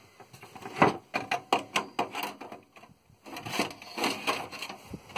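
Handling noise from the opened Apple Lisa 2's metal board cage and plastic case: a quick run of clicks and knocks, then scraping and rustling about three seconds in.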